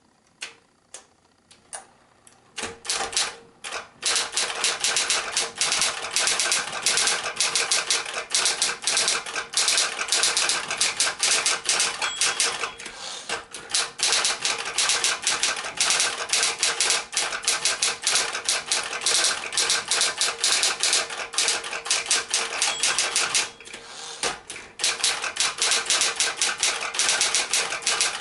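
Smith-Corona Electra 120 electric typewriter typing: a few single keystrokes at first, then a fast, continuous clatter of typebars striking the platen over the steady hum of its motor. The typing pauses briefly about three-quarters of the way through, then resumes.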